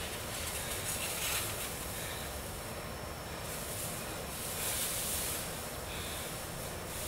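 Large plastic sheets rustling and crinkling as they are swung and spread, in several swells over a steady hiss.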